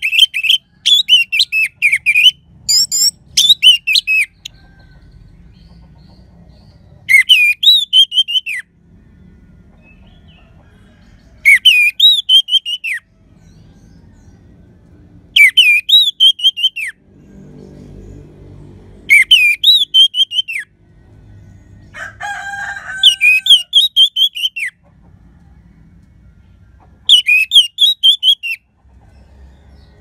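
Orange-headed thrush singing loud, rapidly warbling whistled phrases, a burst of song every three to four seconds after a busier opening run. A lower-pitched call cuts in about two-thirds through.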